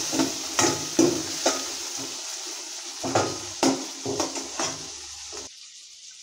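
Metal spoon scraping and clinking against a stainless-steel kadhai as onion, green chilli and tomato are stirred in hot oil for a tadka, over a steady sizzle. The stirring strokes stop near the end and the sound drops much quieter.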